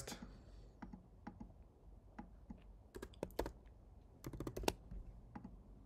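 Faint typing on a computer keyboard: scattered single keystrokes, then two quick runs of keys about three and four and a half seconds in.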